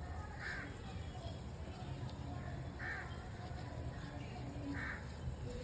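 A bird calling three times, short calls about two seconds apart, over a low steady background hum.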